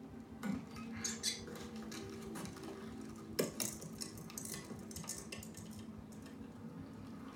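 Film soundtrack playing over home-theater speakers in a small room: scattered clinks and metallic clatter, the loudest about three and a half seconds in, over a steady low hum.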